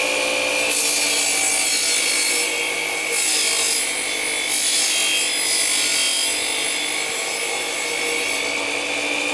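Chop saw with a large wood-cutting blade spinning at speed and cutting into a wooden block, with a steady high whine over a hiss.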